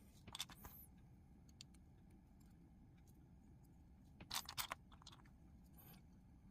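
LEGO plastic pieces being handled and pressed together: a short cluster of clicks just after the start and a louder cluster about four seconds in, with a few single ticks between.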